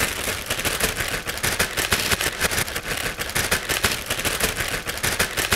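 Clear plastic bag crinkling as it is handled and pulled open, a rapid run of sharp crackles that stops near the end.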